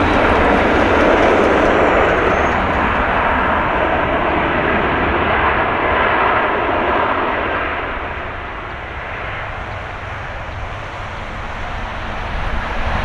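Airbus A330-300 jet engines running with a loud, steady rushing noise as the airliner rolls along the runway; the noise eases off about eight seconds in and rises again near the end.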